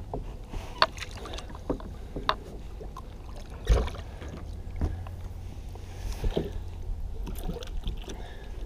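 Water sloshing against a plastic sit-on-top kayak's hull while a hooked smallmouth bass is worked at its side, over a steady low rumble. Scattered small knocks and clicks, with one heavier thump about four seconds in.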